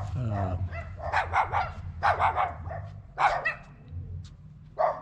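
A dog barking repeatedly in quick clusters of short barks, over a low steady hum.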